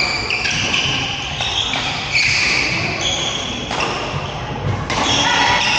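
Badminton rally sounds in a hall: sneakers squeaking on the court floor in a string of shifting high-pitched chirps, and a few sharp racket hits on the shuttlecock, over faint background chatter.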